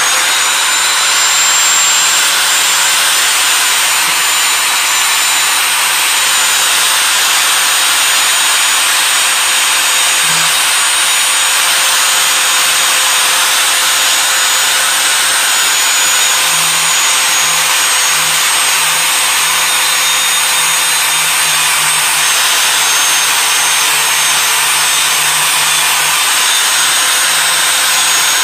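Angle grinder running steadily with its abrasive disc grinding the rusty steel head of an antique hatchet, a steady high whine over the hiss of the disc on the metal.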